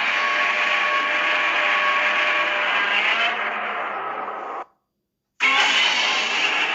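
Film sound effect: a long, loud, harsh rasping sound that fades and cuts off about four and a half seconds in, then after a brief gap a second similar rasp starts.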